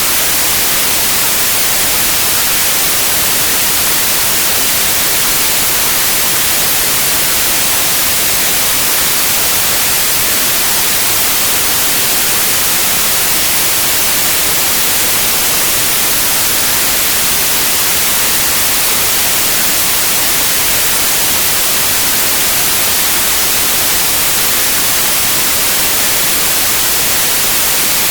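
Steady, loud white noise: an even, unchanging hiss with its energy weighted toward the high frequencies.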